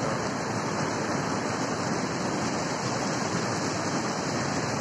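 Swollen, muddy river in flood rushing past in a strong current: a steady, even rush of water.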